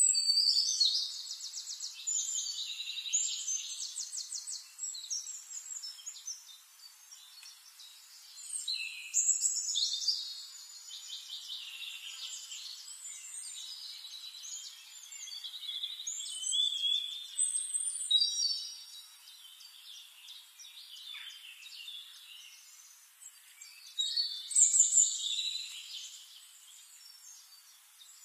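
Songbirds singing: rapid high trills, chirps and warbled phrases in several louder bursts with quieter chirping in between.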